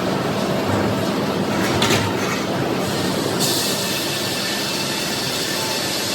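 Sawmill machinery running: the chain conveyor carrying heavy red oak cants clanks and rattles steadily. There is a knock about two seconds in, and a high hiss comes in suddenly just past halfway.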